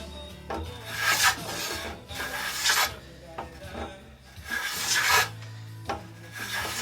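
Hand-tool blade shaving wood from a paddle blank in about four separate strokes, each a rasping swish of roughly a second.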